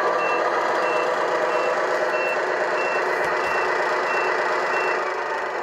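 Tamiya MFC-01 multi-function unit's speaker in the 1/14 King Hauler playing its simulated truck engine with a reversing beep, a short high beep about twice a second: the truck is in reverse. The beeping stops about five seconds in.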